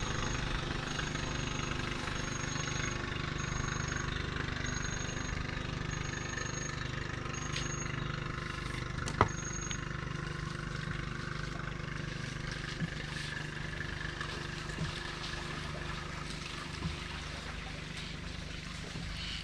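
A steady low motor hum under a constant high hiss, with a high-pitched chirp that repeats about once a second, each about half a second long, for the first ten seconds. A single sharp click about nine seconds in.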